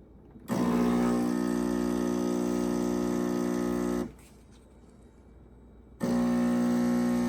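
Capresso EC100 espresso machine's pump running with a steady buzzing hum as it brews. It starts about half a second in, cuts off after about three and a half seconds, and starts again about six seconds in.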